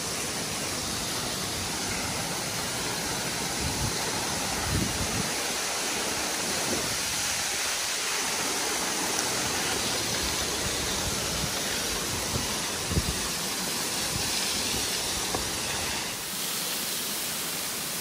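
Meoto-daki, a twin waterfall about 17 m high, pouring onto rocks: a steady rush of falling water, with a few brief low bumps about four, five and thirteen seconds in.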